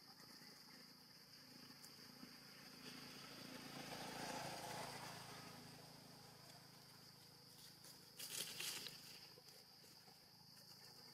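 Steady high-pitched insect chirring, with a broad swell of noise peaking about four seconds in and a short burst of crackling clicks about eight seconds in.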